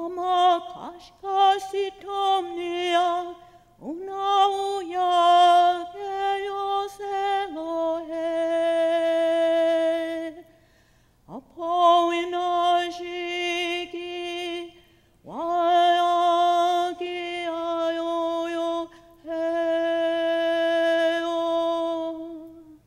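A woman's voice singing solo and unaccompanied, holding long steady notes in four phrases broken by short breaths, the longest pause about ten seconds in.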